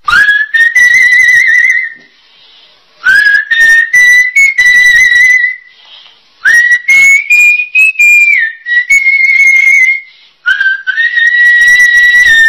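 A man whistling long, wavering high notes in four stretches with short pauses between them; the pitch creeps up through the third stretch and then drops. The audio is loud and crackly.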